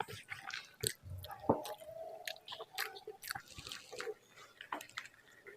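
Close-miked chewing of a mouthful of rice and mashed vegetable bharta, with wet mouth clicks, smacks and crackles coming quickly one after another.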